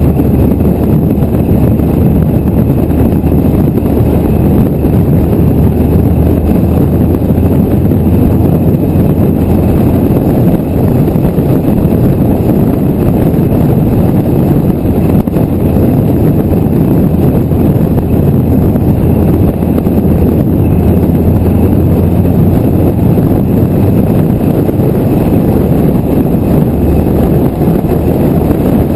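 Car cruising at a steady speed, heard from a camera mounted on its bonnet: steady engine, tyre and wind noise.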